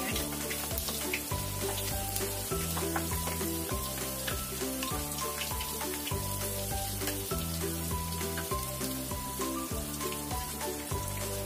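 Wonton-wrapped chicken rolls deep-frying in hot oil, the oil sizzling steadily, under background music with a steady bass line.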